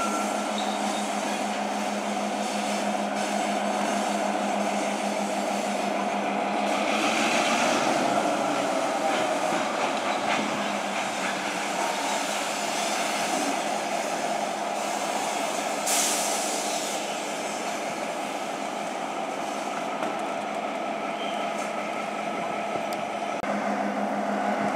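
CN freight train rolling past, a steady rumble and rattle of wheels and cars on the rails, with a single sharp knock about sixteen seconds in.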